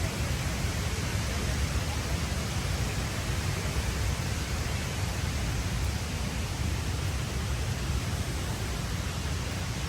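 Steady rushing wind noise over the microphone of a moving Can-Am Spyder RT, with heavy low buffeting and no distinct engine note.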